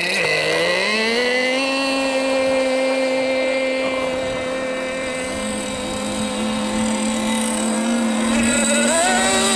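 Engines of radio-controlled scale hydroplane model boats running at a steady high-pitched whine. The pitch climbs in the first second or so as a freshly launched boat speeds up, a second boat's engine joins about five seconds in and beats against the first, and the pitch wavers near the end as the boats turn.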